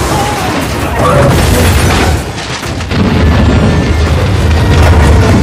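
Loud action-film sound mix: music over deep booms and crashing impacts, with a heavy low rumble through the second half.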